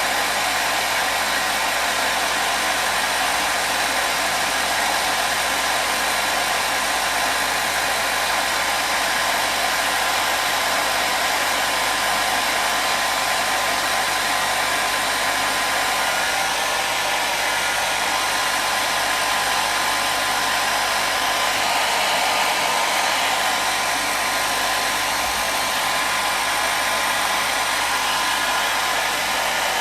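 Hair dryer blowing continuously: a steady rushing whoosh with a faint motor hum, played as white noise for soothing a baby.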